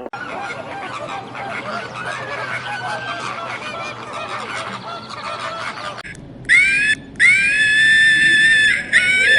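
A flock of geese honking and chattering, many calls overlapping. About six seconds in it cuts to loud, high-pitched bleating, several long calls in a row.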